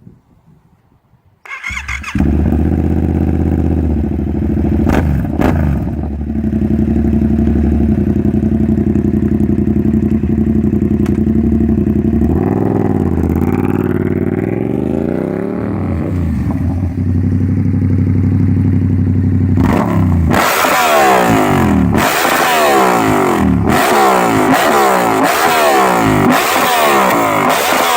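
Yamaha MT-07 parallel-twin engine through an SC Project CR-T full exhaust: it starts about a second and a half in and idles steadily, is revved up and down twice, settles back to idle, then from about two-thirds of the way through the throttle is blipped repeatedly in quick rises and falls.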